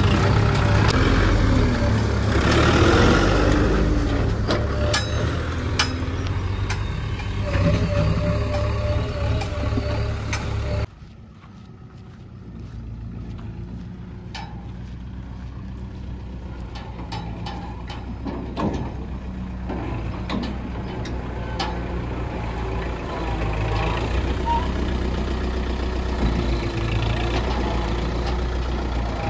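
Kubota MU4501 tractor's diesel engine running close by, with light clicks and rattles. About a third of the way through it cuts off suddenly to a quieter, steady engine hum that grows a little louder toward the end as the tractor approaches.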